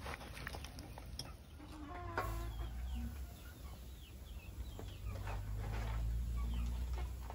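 Chickens clucking, with many short calls throughout and one fuller call about two seconds in. A steady low rumble joins them about two seconds in.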